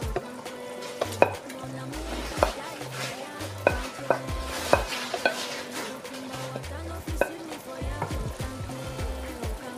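Wooden spatula scraping stew off a ceramic plate into a metal cooking pot, with a dozen or so sharp clinks of spatula against plate and pot at uneven intervals. Background music with a bass line plays under it.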